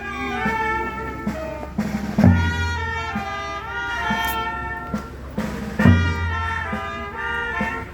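Brass band playing a slow tune, trumpets carrying the melody over heavy bass-drum strokes about every three and a half seconds, with lighter beats in between.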